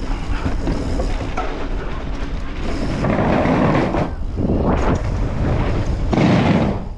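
Mountain bike rolling fast down a dirt jump line: wind rushing over the camera microphone and knobby tyres on hard-packed dirt, swelling louder about three seconds in and again near the end.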